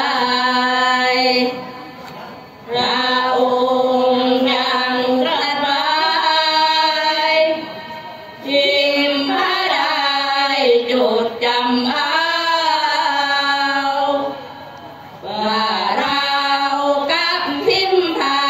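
Women's voices chanting sorapanya, Thai Buddhist devotional verse, together in long sung phrases with held, gliding notes, broken by three short pauses.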